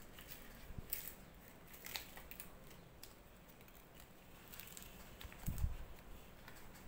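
Stiff green leaves rustling and crackling in the hands as rice is folded into leaf packets, in short scattered bursts. A dull thump about five and a half seconds in is the loudest sound.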